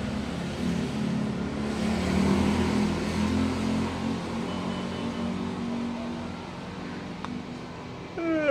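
A motor vehicle's engine running, swelling a couple of seconds in and then fading away. Near the end a man lets out a long, loud yawn.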